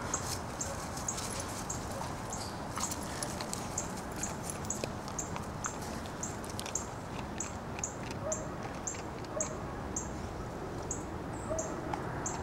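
Outdoor ambience with a small high chirp repeating very regularly, about three times a second, and a few short faint squeaks in the second half.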